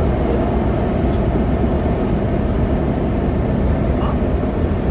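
Inside a moving city bus, Hillsbus 9507: the engine and drivetrain hum steadily under road noise, at a constant level with no gear changes or stops.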